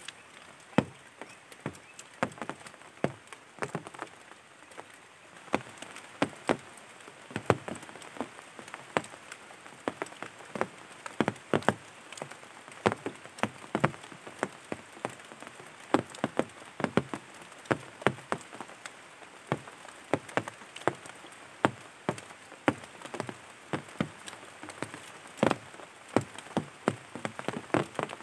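Rain: large drops hitting a nearby surface in irregular sharp taps, a few a second, over a faint steady hiss.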